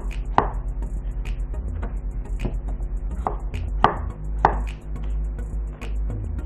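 Kitchen knife chopping pumpkin into cubes on a plastic cutting board: a sharp knock each time the blade goes through to the board, about one every half second, with a short pause near the end.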